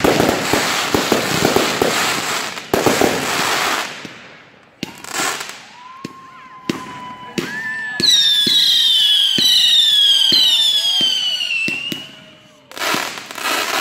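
Fireworks: a dense crackle of crackling stars for the first few seconds, then a few sharp bangs and shrill whistles, one held for about four seconds while its pitch slowly falls. A fresh burst of crackling comes near the end.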